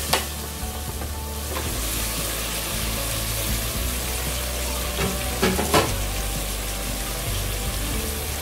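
Raw mutton pieces with onion, tomato and garlic sizzling steadily in hot oil in an aluminium pressure cooker as the meat starts to sear. Sharp knocks sound just at the start and again two or three times around five seconds in.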